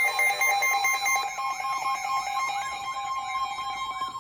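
Emergency alert tone: a steady two-tone alarm sounds together with a fast warbling, siren-like tone that sweeps up and down over it, gradually getting quieter. Near the end the lower tone drops out, leaving one steady tone.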